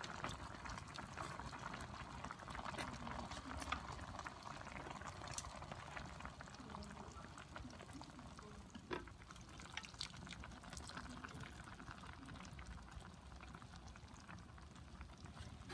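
Broth simmering around chicken drumsticks in an electric skillet: a faint, steady bubbling with many small pops and crackles.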